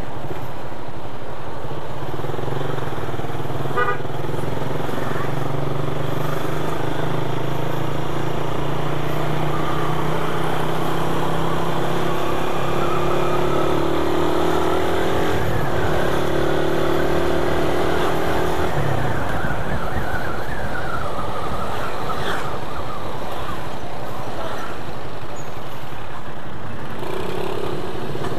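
Motorcycle engine running while riding through town traffic, its pitch rising slowly through the middle and dropping off about two-thirds of the way through, over road noise from surrounding motorbikes and cars.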